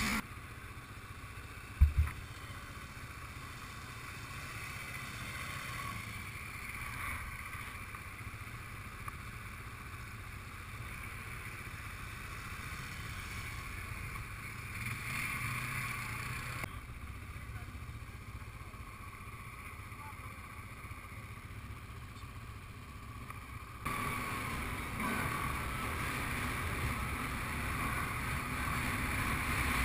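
Quad bike (ATV) engine running steadily, with wind noise on the microphone. There is one sharp knock about two seconds in, and the sound changes abruptly twice later on.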